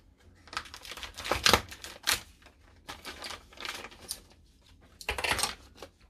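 Parts packaging being opened and handled: crinkling and tearing with bursts of sharp clicks from small parts, in irregular spurts with short pauses.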